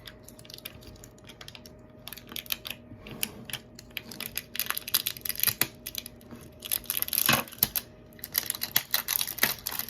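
Plastic slime container and its packaging being handled and pried at while someone tries to open it: a run of irregular small clicks and taps, with louder crinkling of plastic in the second half.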